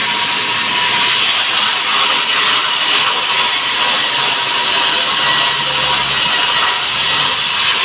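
Sawmill band saw running steadily: a constant, high-pitched hiss from the moving blade and its drive.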